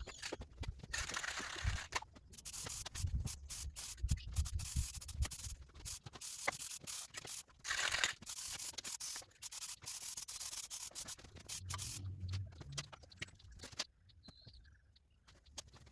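Sanding: rough rubbing in quick strokes, coming in stretches with short breaks, dying away near the end.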